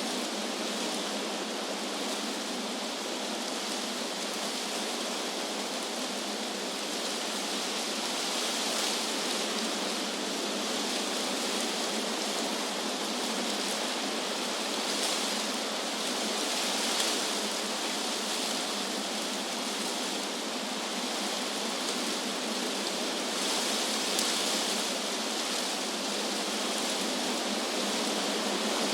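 Wind blowing through trees, a steady rustling hiss of leaves that swells in gusts a few times.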